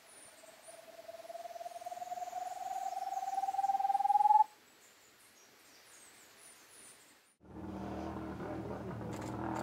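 A man's hand-cupped whistle, one long hooting note that rises slowly in pitch and swells louder for about four seconds before stopping abruptly. It imitates an antpitta's song to call the birds in. After a short quiet gap, a steady background sound takes over about seven seconds in.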